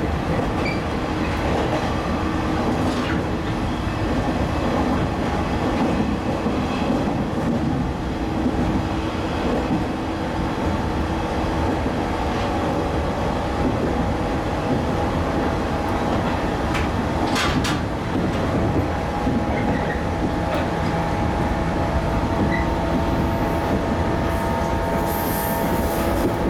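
Running noise heard inside a JR 115 series electric train car at speed: a steady rumble of wheels on rail with a droning hum, and a few sharp clicks a little past halfway.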